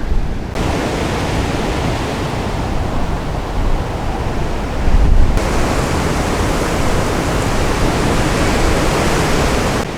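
Wind blowing through cottonwood leaves: a steady rustling hiss, with gusts of about 20 miles an hour buffeting the microphone as a low rumble. The hiss grows louder about five seconds in with a stronger gust.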